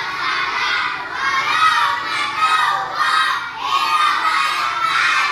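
A class of young children shouting together in unison, in loud phrases of about a second each with short breaks between.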